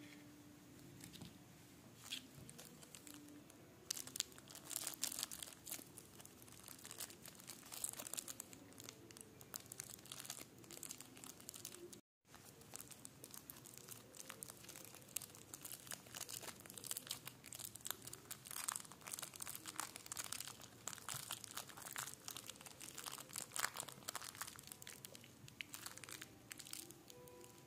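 Plastic wrapper of a miniature Snickers bar crinkling in many short crackles as it is handled, untwisted and pulled open, with the bar broken inside it. The sound cuts out for an instant a little before halfway.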